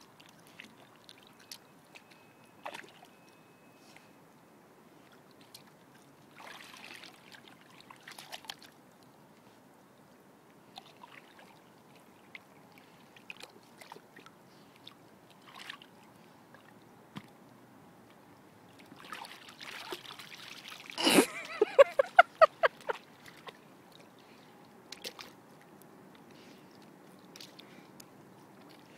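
Light sloshing and scattered small splashes of shallow river water as a Siberian husky wades and noses in the shallows. About two-thirds of the way through, a loud, pulsing vocal sound lasts about two seconds.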